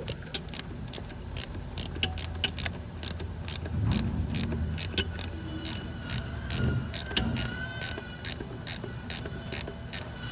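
Ratchet wrench clicking in quick, even strokes as it turns the bolt of a homemade seal installer, pressing a camshaft oil seal into place.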